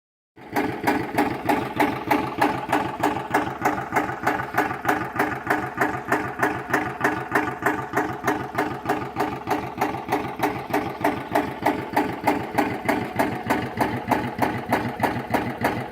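Engine running steadily, with an even knocking beat of about two and a half knocks a second.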